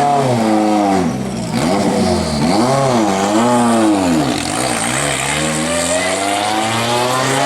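Historic rally car's engine revving hard, its pitch climbing and dropping several times with gear changes and lifts, then rising steadily in one long pull near the end.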